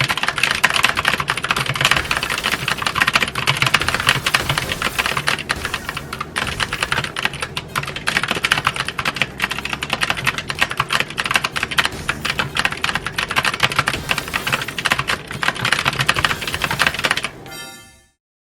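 Continuous fast typing on a Keychron K8 mechanical keyboard with optical brown switches: a dense run of key clicks that fades out near the end.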